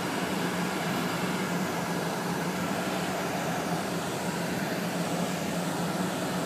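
Steady cabin noise inside a slowly moving car: an even hiss over a low, constant hum, with no distinct events.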